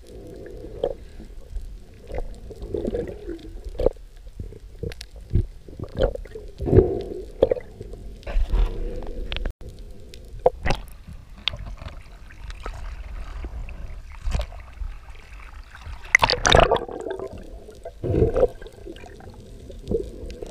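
Muffled underwater sound as heard through a camera housing: a low rumble with irregular clicks, knocks and gurgles while the spear shaft and speared fish are handled, and one louder burst of noise about two-thirds of the way through.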